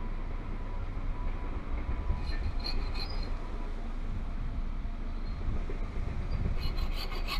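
Bow saw cutting through a peeled wooden sapling pole, the blade rasping back and forth, with a few sharp clicks near the end.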